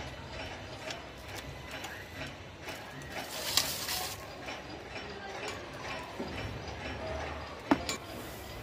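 Hand-eating noises: chewing and small clicks of fingers and rice against a stainless steel plate, with a brief rustling scrape about three seconds in as the plate is handled, and a sharp clink near the end.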